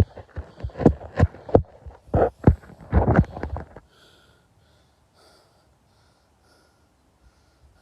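A quick run of dull thumps, about two or three a second, that stops about four seconds in, after which it is nearly quiet.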